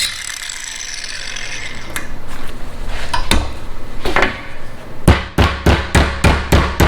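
A hammer striking thin sheet metal: a few scattered knocks and some scraping, then about five seconds in a quick, even run of taps at roughly three to four strikes a second.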